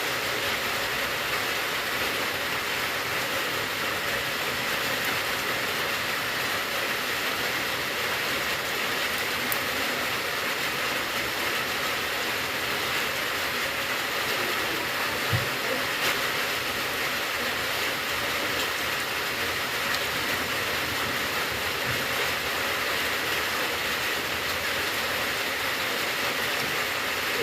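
Steady rain falling, an even, unbroken hiss, with a faint knock or two about halfway through.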